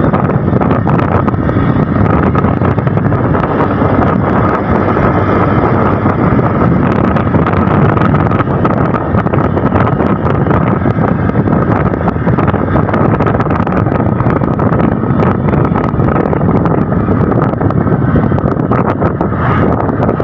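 Wind rushing over the microphone on a moving motorcycle, over the bike's engine running steadily, with a steady high whine throughout.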